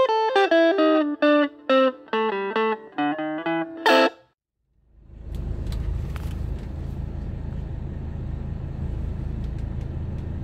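Electric guitar music plays a run of plucked notes for about four seconds, then stops. After a short gap a steady low rumble starts: the 1984 Mercedes 300SD's OM617 five-cylinder turbo-diesel running, heard from inside the cabin as the car creeps forward.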